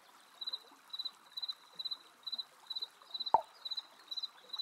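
Cartoon sound effects: a short high chirp repeating about twice a second over a faint trickle of water, and about three seconds in a quick falling bloop as a fish pops up out of the water.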